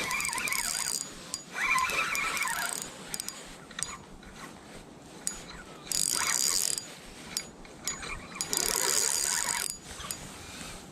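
Fishing reel being cranked in short bursts of about a second each, a whirring, clicking ratchet-like sound, with faint clicks between.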